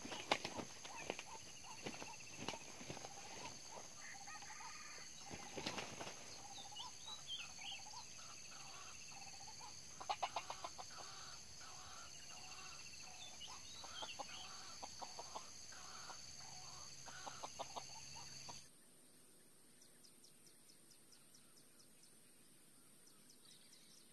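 Red junglefowl roosters fighting: bursts of wing flapping and short clucking calls, over a steady high insect drone. The sound drops suddenly about three-quarters of the way through, leaving only faint ticking.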